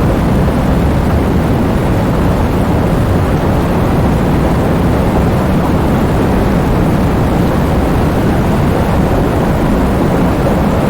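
Heavy rain with strong wind: a loud, steady, deep rushing noise without separate drops or gusts standing out.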